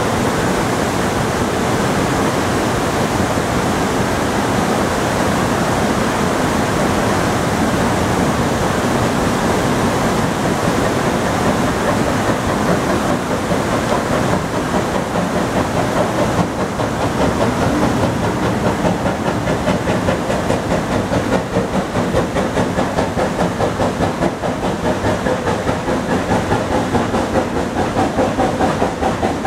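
River rapids rushing steadily, and from about halfway through, the rhythmic exhaust chuff of an approaching steam locomotive, Great Smoky Mountain Railroad's oil-fired 1942 2-8-0 #1702, growing louder.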